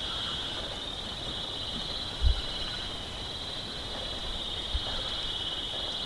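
Common grasshopper warbler reeling: one unbroken high trill held on a steady pitch. Low dull bumps come about two seconds in and again near five seconds.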